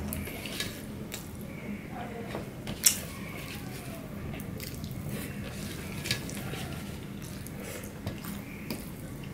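A man eating with his fingers: chewing, and fingers gathering food on a steel plate, with scattered small clicks and one sharp tap about three seconds in.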